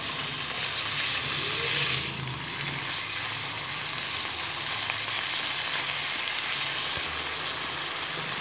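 Cubes of boneless chicken sizzling in hot oil with garlic in a wok as they are stirred with a silicone spatula. The sizzle is louder for the first two seconds, then settles to a steady, softer hiss.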